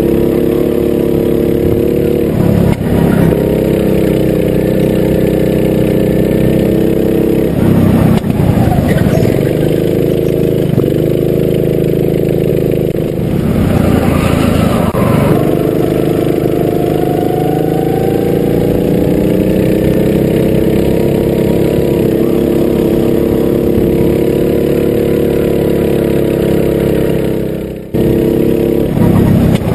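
Rental kart engine running hard, heard from on board, its pitch rising and falling with the throttle through the corners. The sound dips briefly a few times, most sharply near the end.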